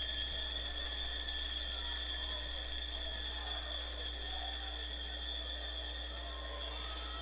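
A steady, high-pitched whine made of several fixed tones over a low hum, with faint, indistinct sound beneath it.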